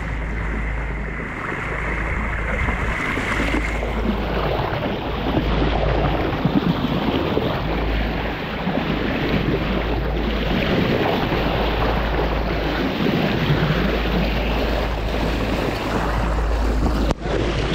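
Wind buffeting the microphone over the steady rush of water along the bow of a Pearson Vanguard 32 sailboat underway.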